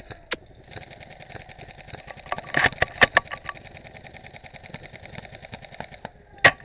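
Airsoft gunfire: a few sharp cracks, spread about three seconds apart, over a rapid, steady mechanical rattle that starts just under a second in and stops near the end.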